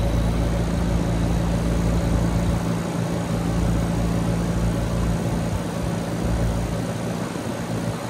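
Trane XR14 heat pump outdoor unit running just after start-up: a steady hum from its Alliance scroll compressor and the top-discharge condenser fan turning. A low rumble under the hum eases off about seven seconds in.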